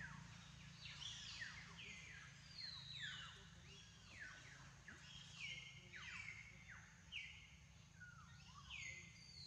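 Birds chirping in the forest, many overlapping high calls that each slide down in pitch, repeating throughout.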